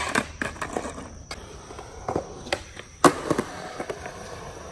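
Skateboard on concrete: urethane wheels rolling with scattered clacks and knocks of the board, and one loud, sharp clack about three seconds in.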